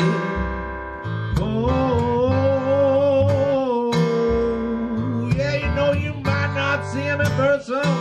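Country-blues band playing an instrumental passage: acoustic guitar and a plucked washtub bass, with a long, wavering lead note held from about a second and a half in, then busier picked guitar notes.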